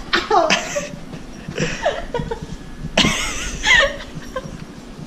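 Breathy laughter in several short bursts, with gasping breaths.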